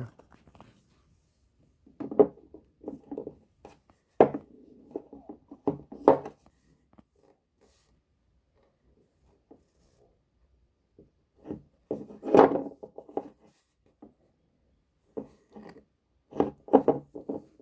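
Stones being handled and set down: a few bouts of knocking and rubbing with quiet gaps between, the sharpest knocks about four seconds in and about twelve seconds in.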